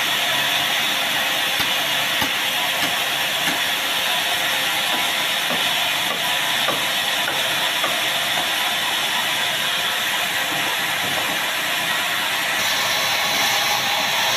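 Sawmill band saw running steadily, a loud even hiss and hum, with a couple of light knocks about two seconds in and a change in the high hiss near the end.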